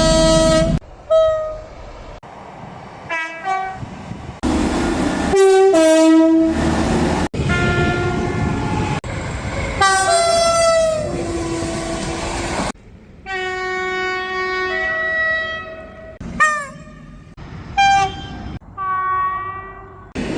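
Train horns sounded one after another, short toots and longer blasts, some stepping between a high and a low note, over the running noise of the trains. The sound changes abruptly every few seconds from one horn to the next.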